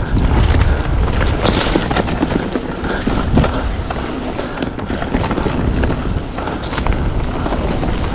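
Polygon Siskiu T7 mountain bike rolling fast down a dirt trail: tyre noise on the ground with small rattles and knocks from the bike, over a steady rumble of wind on the microphone.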